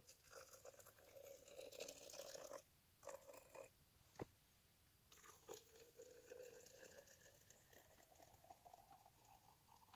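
Coffee poured from a camp percolator into an insulated tumbler: a faint pour whose pitch rises steadily as the tumbler fills, over the second half. It is preceded by a few seconds of hissing and a single sharp click about four seconds in.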